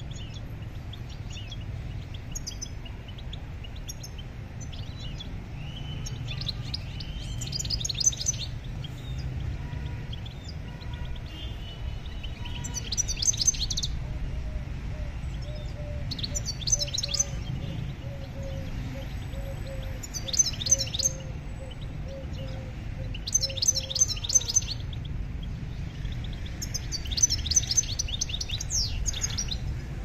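A songbird singing short, rapid, bright phrases, one about every three to four seconds, over a steady low rumble of outdoor background noise.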